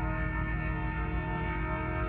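Locomotive air horn held in one long, steady chord as the train approaches.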